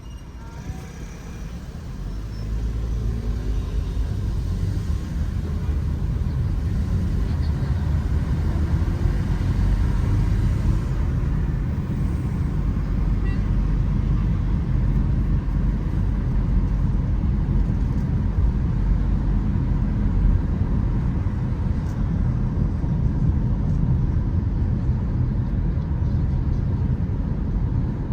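Car driving on a city street: a steady low rumble of engine and road noise that swells about two seconds in, with a rising engine note as it picks up speed.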